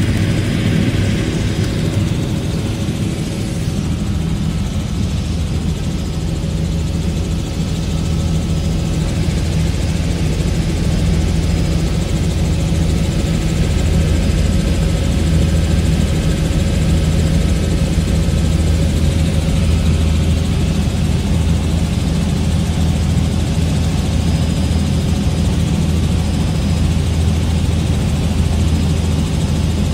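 Tour helicopter's engine and rotor running steadily in flight, heard from inside the cabin as a constant low hum.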